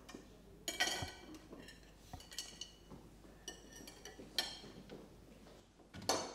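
Cutlery and plates clinking at a dinner table: several separate clinks, each ringing briefly, the loudest about a second in, again past the middle and near the end.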